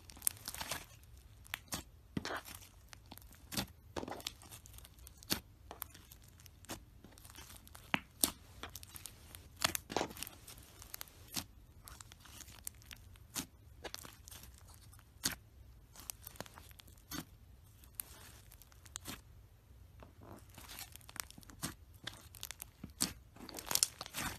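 White slime squeezed and kneaded by hand, giving a scatter of sharp, irregular sticky pops and crackles, several clustered near the end.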